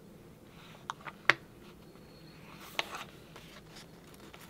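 Paper sticker sheets being handled and shuffled by hand: a few sharp clicks and taps about a second in, the loudest near the middle of them, then a soft paper rustle about three seconds in.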